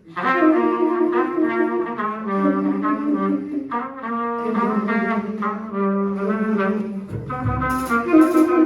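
Trumpet and tenor saxophone playing a jazz melody together in two-part harmony, at first with no rhythm section. About seven seconds in, bass and drums with cymbals come in under the horns.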